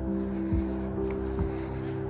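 Background music: long held notes over a slow, steady low beat.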